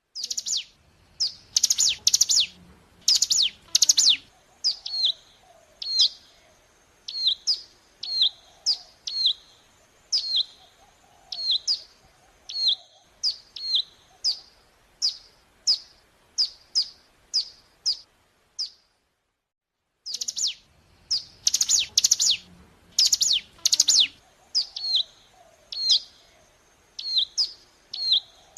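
Ciblek gunung (a prinia) song from a lure recording: a burst of loud, sharp down-swept chirps, then a run of shorter high notes about two a second. The song breaks off for about a second and a half near two-thirds of the way in, then the same phrase starts over.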